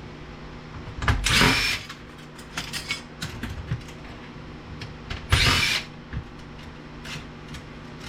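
Cordless power screwdriver running in two short bursts, about a second in and again about five seconds in, driving out screws while a VCR is taken apart. Light clicks and taps of parts being handled come between.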